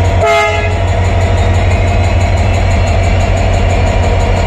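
WDP-4D diesel locomotive idling close by with a steady low engine drone. A short horn toot of about half a second sounds just after the start.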